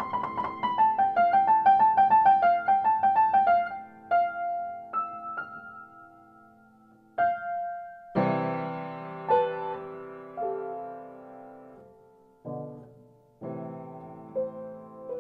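Solo piano music: a run of quick repeated notes, then slower single notes and full chords that ring and die away.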